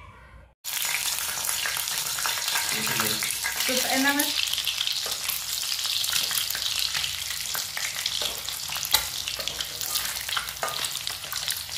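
Halved hard-boiled eggs frying in hot oil in a kadhai: a dense sizzle full of spattering pops. It starts suddenly about half a second in.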